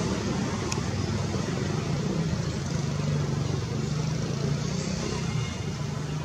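Steady low mechanical rumble with a constant hum.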